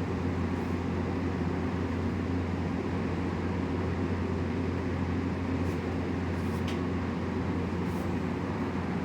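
A steady low machine hum, with a few faint ticks in the second half.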